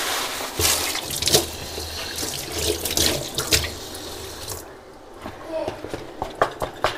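Kitchen tap running into a sink, with clatter of things being handled under it. The water stops about four and a half seconds in, followed by a few light knocks.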